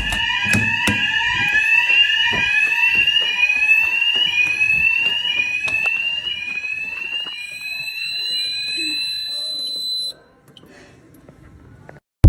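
Fire alarm sounders going off during an alarm test, giving a repeating rising sweep tone about once a second. The tone cuts off suddenly about ten seconds in.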